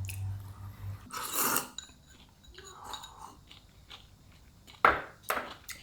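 A person chewing and biting food close to the microphone, heard as a few separate crunching bursts, with two short sharp noises near the end.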